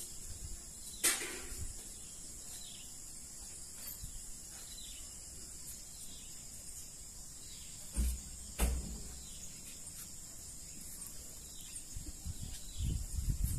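Steady high-pitched chorus of insects in the open air. A few sharp clicks come about a second in and twice near the eight-second mark, and a low rustle of handling builds near the end.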